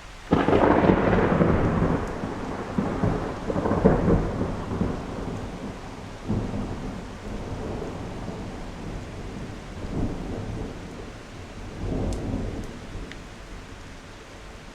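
Thunder: a sudden loud crack just after the start, then rolling rumbles that come back in several weaker waves and die away toward the end, over steady rain.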